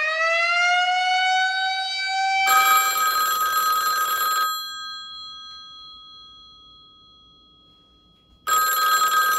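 A siren winds up, its wail rising in pitch. It gives way to a rotary desk telephone's bell ringing, one long ring that dies away slowly, then a second ring starting near the end.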